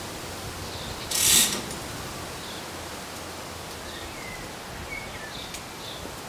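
A short, loud mechanical rasp about a second in, over a steady outdoor background.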